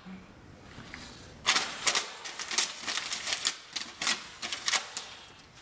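A paper note crackling and rustling as it is pulled off a door and folded in the hands: a dense run of irregular crisp crackles from about a second and a half in, dying away near the end.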